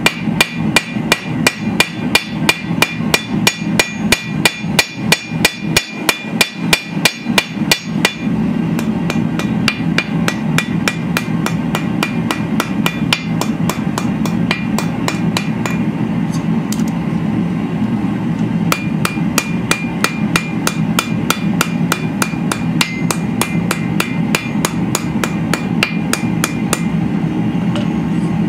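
Blacksmith's hammer striking hot steel held in tongs on an anvil, in fast, even blows about four a second. The blows are heavy for the first eight seconds or so, then lighter, over a steady low hum.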